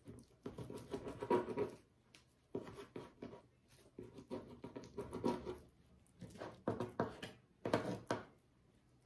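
Kitchen knife sawing through raw chicken breast on a plastic cutting board: scraping strokes in five bursts of about a second each, with short pauses between.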